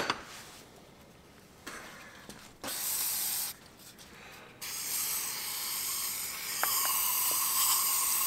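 Aerosol can of brake cleaner spraying into the threaded end of a tie rod tube: two short bursts, then a long steady spray from about halfway through.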